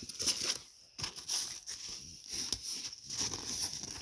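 Hands rummaging through a zippered pouch of fidget toys: irregular rustling and crinkling, with a short lull about a second in.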